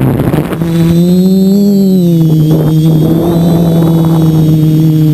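Quadcopter's electric motors and 10-inch plastic propellers (1045 blades) humming steadily as it lifts off and climbs, heard from the onboard camera. The pitch rises briefly about a second and a half in, then settles.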